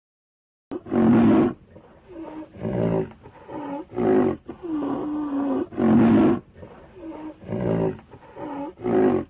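A rhinoceros calling: a string of about ten short, pitched calls, roughly one a second, the loudest about a second, four, six and nine seconds in, with a longer, steadier call just before the middle.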